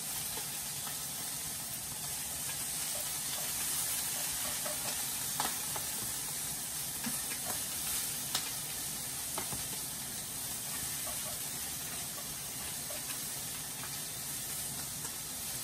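Pork and shrimp sizzling steadily in oil in nonstick frying pans, with a few sharp clicks of chopsticks against the pan as the pieces are stirred.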